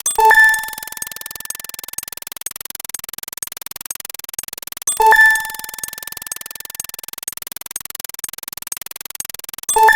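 A short electronic ding sound effect, two pitches sounding together and fading quickly, repeated three times about five seconds apart over a faint rapid ticking.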